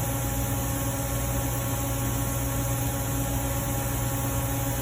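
Steady background hum and hiss, with a strong low hum and several constant tones, unchanging throughout.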